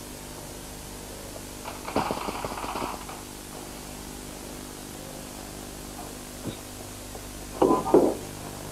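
Spray paint cans and a plastic bag being handled: two short bursts of knocking and scraping, about two seconds in and near the end, over a steady hum.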